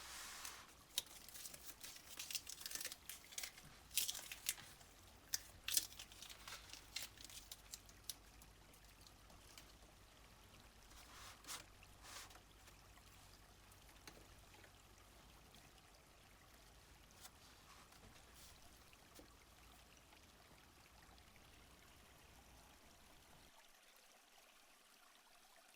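Small stream flowing and trickling faintly, with quick splashes and drips over the first several seconds before it settles into a steady babble.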